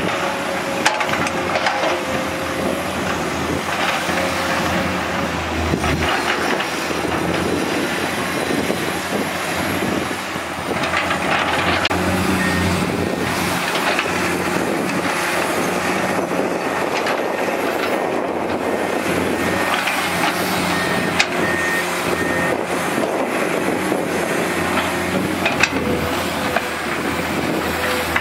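Komatsu PC210 hydraulic excavator's diesel engine running steadily under load while it digs and lifts sand, with a few short knocks scattered through.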